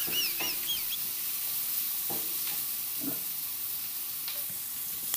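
Sliced onion and ginger sizzling in a little oil in a nonstick frying pan, with a steady hiss. A wooden spatula knocks and scrapes against the pan a few times while stirring.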